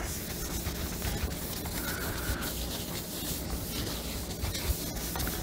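Faint rubbing of a rag wiping down a sanded motorcycle gas tank with mineral spirits to clean it before sealing, over a steady low hum.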